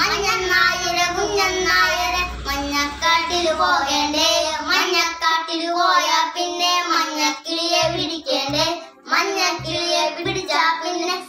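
Two young boys singing a song together in unison, with a short break about nine seconds in.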